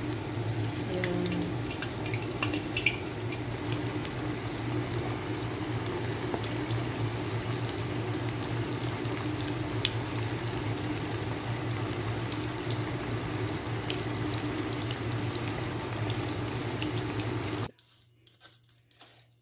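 Semolina-coated fish deep-frying in hot oil in a wok: a steady sizzle with scattered crackles and pops over a low hum. Near the end it cuts off abruptly to the quiet scraping of potatoes being peeled.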